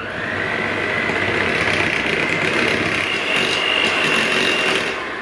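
Electric hand mixer running, its beaters whipping mascarpone and cream in a glass bowl. The motor's steady whine steps up in pitch about three seconds in, then fades out at the end.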